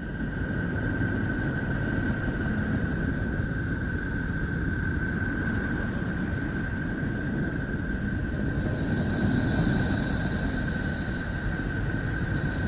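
Space sound recording released by NASA: a steady low rumbling hiss with a steady whistle-like tone held over it, a fainter high tone joining about nine seconds in.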